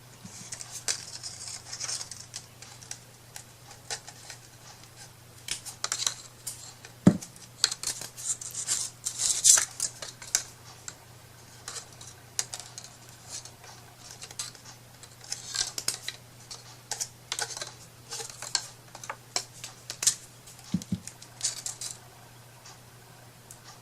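Crafting materials handled on a work surface: irregular light clicks, taps and rustles, with a sharper knock about 7 seconds in and another near 21 seconds, over a faint steady low hum.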